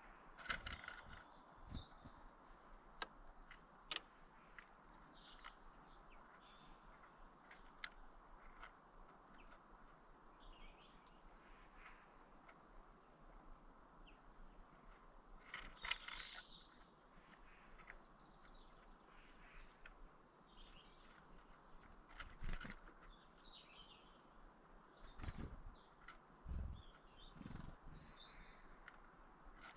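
Faint, scattered chirps and twitters of small birds over a quiet background, with a few sharp clicks and some low thumps in the second half.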